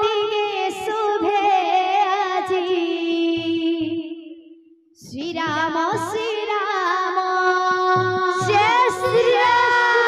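Amplified woman's voice singing an Odia ladies' kirtan song, holding one long wavering note that fades out about four and a half seconds in. The singing and music then start again, with low regular beats.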